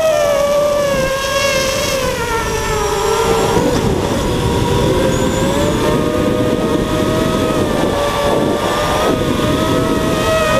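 FPV quadcopter's electric motors and propellers whining. The pitch sags a few seconds in and climbs back toward the end as the throttle changes, over a low rush of wind noise.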